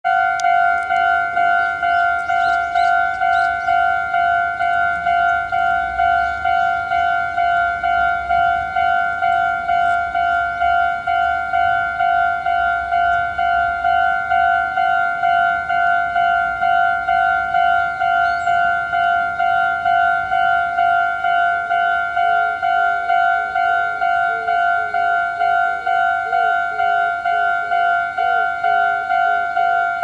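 Japanese railway level-crossing warning bell ringing: an electronic two-tone ding repeated evenly, a little under twice a second. A fainter wavering lower tone joins in during the last third.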